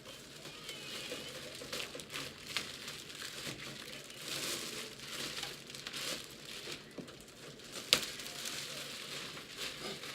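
Plastic wrapping on a PC case crinkling and rustling unevenly as it is handled, with scattered small clicks and one sharp click about eight seconds in.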